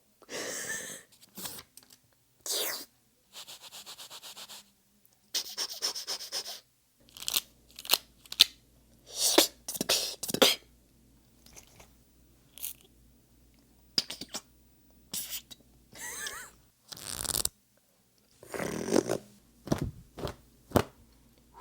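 A person making a series of imitated sound effects with the mouth and voice, beatbox-style: short bursts of different kinds, including buzzing rattles with fine rapid pulses, sharp clicks and pops, and hissing bursts, each separated by brief gaps.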